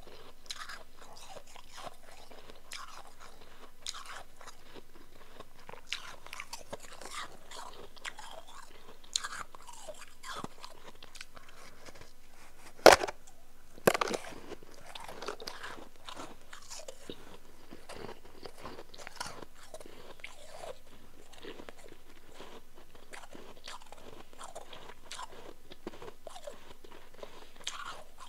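Close-miked crunching and chewing of powdery, chunky ice, with irregular crunches throughout and two louder bites about halfway through.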